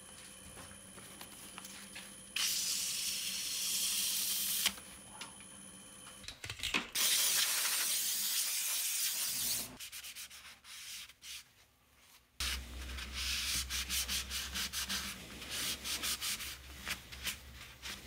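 Sanding a turned burl wood piece: abrasive rubbing in three stretches of a few seconds with short pauses between. The last stretch is quick scratchy strokes over a low hum.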